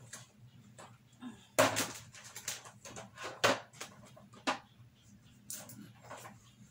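A series of short, sharp clicks and knocks, the loudest about one and a half seconds in, over a low steady hum.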